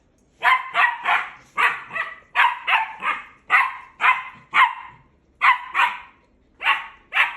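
Puppy barking repeatedly, about fifteen short barks in quick pairs and triplets with brief pauses between the groups.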